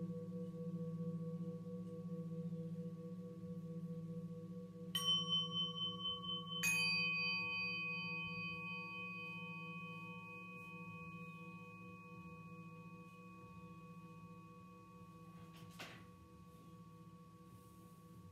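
Metal singing bowls ringing after being struck with a felt mallet: a deep tone with a slow pulsing beat, slowly fading. About five seconds in, and again a second and a half later, higher-pitched ringing strikes join and sustain before dying away. There is a faint knock near the end.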